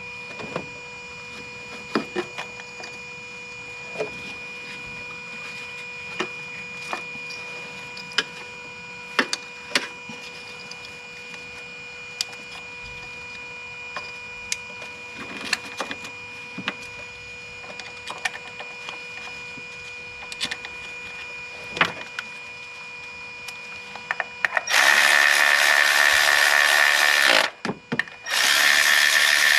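Scattered small clicks and knocks of hand work on the engine while swapping ignition coil packs, over a steady background hum. About 25 s in, a loud power tool runs in two bursts: the first lasts about two and a half seconds, and the second starts about a second later.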